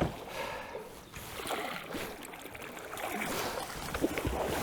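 Faint river water trickling and lapping, with a few light knocks.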